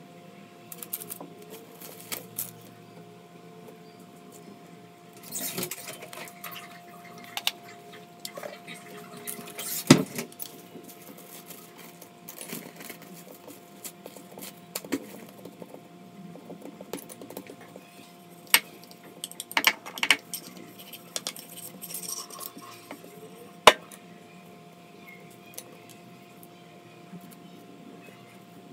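Metal cookie cutters and hands working dough on a granite countertop: scattered clicks, taps and knocks, with plastic wrap crinkling now and then. One sharp knock about ten seconds in is the loudest, and a faint steady hum runs underneath.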